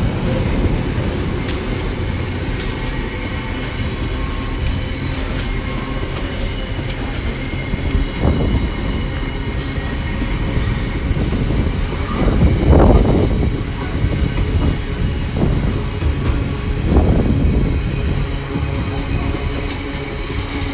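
Long, heavy loaded freight train's wagons rolling past on jointed track, a steady rumble of wheels on rail with clickety-clack and a few louder swells as heavier stretches pass.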